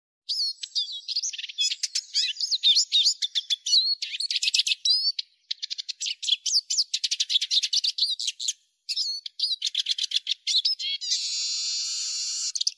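Eurasian siskin singing: a fast, twittering run of high chirps and trills, broken by two short pauses. It ends, about eleven seconds in, with a drawn-out buzzy wheeze that cuts off sharply.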